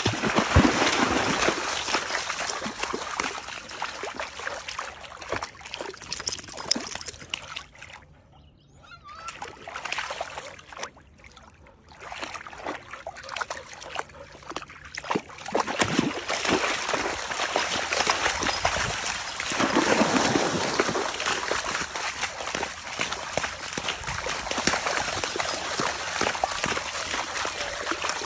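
Silver Labrador retriever puppy splashing and wading through shallow water, its paws churning and slapping the water. A quieter lull comes about eight to twelve seconds in, then the splashing picks up again.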